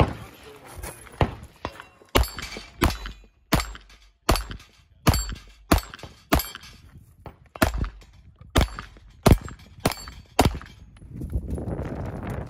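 A string of about fourteen pistol shots at steel targets, roughly one every three-quarters of a second, with the clang of struck steel plates. The shots stop about ten and a half seconds in.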